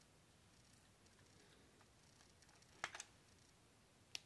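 Near-silent room with a few sharp plastic clicks from the Lego flintlock pistol being handled: a quick double click about three seconds in and a single click near the end.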